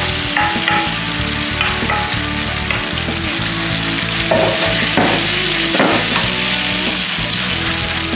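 Grated potato and butternut squash rösti mixture sizzling loudly in hot olive oil in a frying pan as it is spread and stirred with a wooden spoon, with a few scrapes of the spoon. Background music plays underneath.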